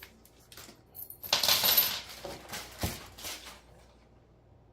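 Small metal washers and wheel pins clinking and jingling as they are handled, with a burst of jingling a little over a second in and a few single clicks after it.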